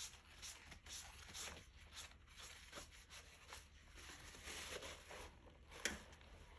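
Faint scratchy strokes of a paintbrush on watercolour paper, coming irregularly about twice a second, with one sharper click near the end.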